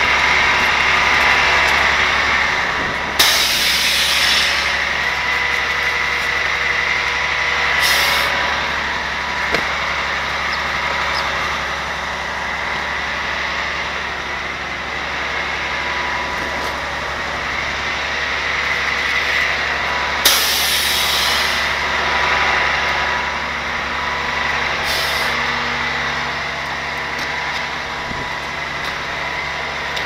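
Grapple truck's diesel engine idling steadily, with four sudden hisses, each lasting about a second.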